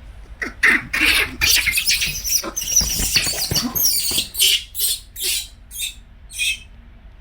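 Young monkey squeaking and chirping: a quick, dense run of high-pitched calls for about three and a half seconds, then five or so separate short squeaks spaced apart.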